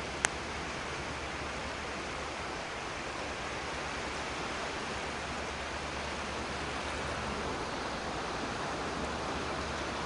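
Steady, even rush of distant surf on a beach, with one sharp click just after the start.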